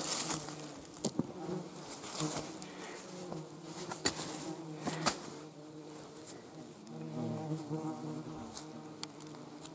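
Biting flies buzzing close by, the pitch wavering as they circle. A few sharp knocks of a digging tool on stones in the soil can be heard.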